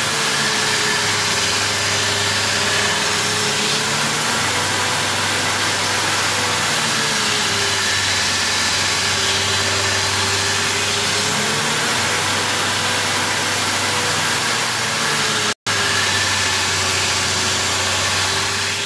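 2x72 belt grinder running with a steel knife blade pressed freehand against a worn abrasive belt, a loud steady grinding hiss over the motor's whine. The whine slowly dips and recovers in pitch several times, and the sound breaks off for an instant about three-quarters through.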